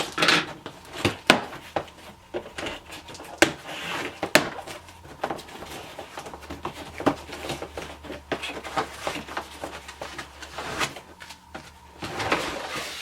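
Cardboard box and its packaging being handled and opened: irregular knocks, scrapes and rustles.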